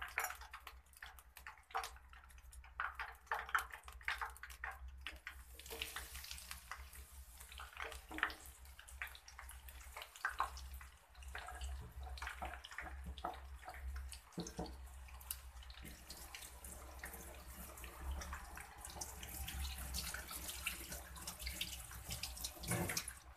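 Hot oil sizzling in a wok as coated wedges deep-fry, with many sharp crackles and pops over a hiss that grows denser and steadier after about six seconds.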